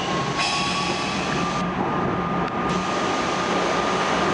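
R42 subway car running, heard from inside the car: a steady rumble of wheels and motors, with a thin motor whine slowly rising in pitch. A faint high squeal comes in about half a second in and lasts about a second.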